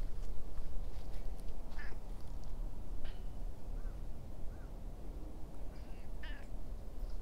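A few short bird calls, about two, three and six seconds in, over a steady low rumble.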